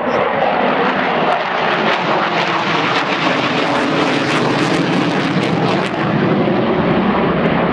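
Jet fighters passing overhead: loud, steady jet engine noise with a crackle in it through the middle of the pass.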